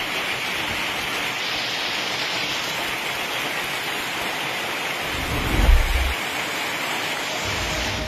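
Heavy rain mixed with hail: a steady hiss of hailstones and rain pelting the ground. A brief low rumble comes about five and a half seconds in.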